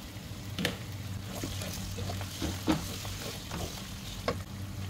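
Wooden spoon stirring and scraping potato cubes and onions frying in oil in a non-stick pan, with a light sizzle and a few sharp knocks of the spoon against the pan, over a steady low hum.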